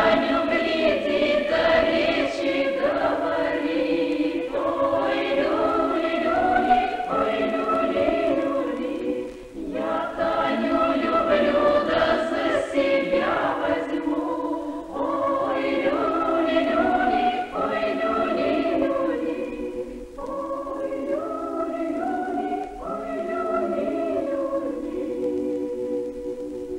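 A choir singing, in phrases a few seconds long with short breaks between, growing softer near the end.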